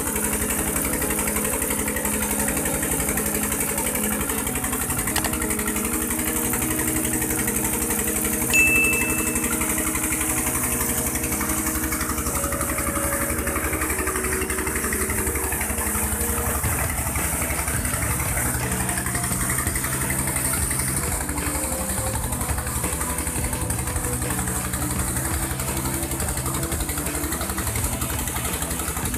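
Diesel engine running steadily as it drives a tube well pump, with water gushing and splashing out of the outlet pipe into a concrete channel. A brief high tone sounds about nine seconds in.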